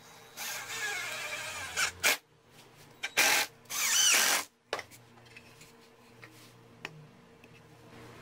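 18-volt cordless drill driving screws into softwood, in two short runs: the first lasts about a second and a half, and the second, about three seconds in, stops briefly partway through.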